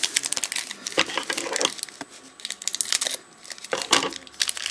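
Trading card pack wrapper crinkling and rustling in irregular bursts as it is handled and opened, thinning out for a moment in the middle.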